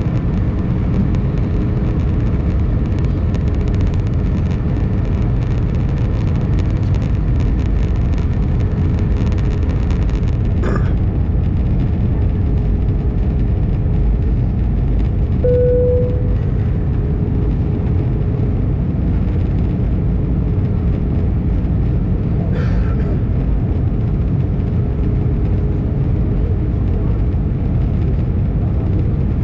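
Steady cabin noise of an Airbus A319 in flight, heard from a window seat over the wing: the drone of the engines and rushing air, with a faint steady hum. A short faint tone sounds about halfway through.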